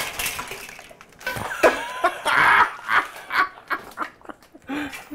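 Dry pasta spilling from its bag and scattering over the floor: a run of small, irregular clicks and clatters, with short startled voice sounds among them.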